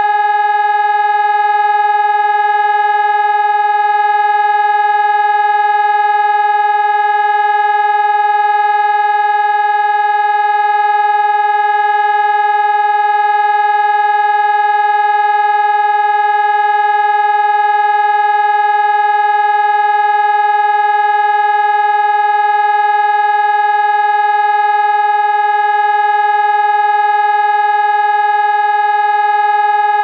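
PPSS 600-C civil-defence siren sounding the Austrian all-clear signal ("Entwarnung"): one steady, unchanging tone, meaning the danger is over.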